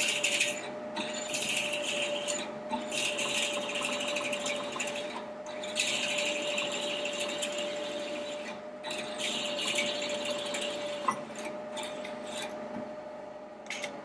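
Manual milling machine drilling a hole in a metal T-nut blank: a steady spindle whine under the harsh scraping and crunching of the drill cutting, which comes in stretches with short breaks. The cutting fades off near the end as the drill is withdrawn from the hole.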